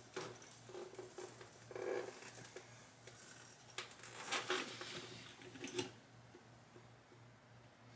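Faint rustling of clothing and hair as a person turns around, a handful of soft brushing sounds with the most about four to six seconds in, over a low steady hum.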